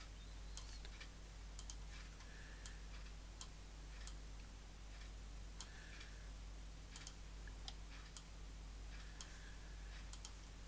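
Computer mouse clicking: faint, irregular single clicks every second or so, over a low steady hum.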